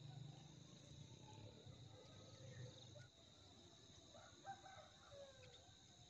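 Faint outdoor insect drone of crickets with a steady high whine, and a distant rooster crowing once about four seconds in. A low hum drops away about three seconds in.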